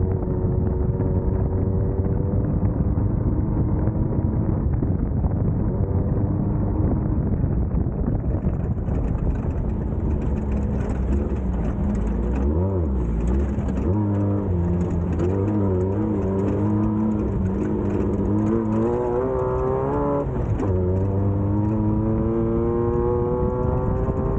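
Class 1600 off-road race buggy's air-cooled VW engine running hard under load, its pitch climbing through the revs, wavering up and down from about halfway, then dropping sharply a few seconds before the end and climbing again. Under it is a heavy, steady rumble of the car over rough ground, with a hiss that comes in about a third of the way through.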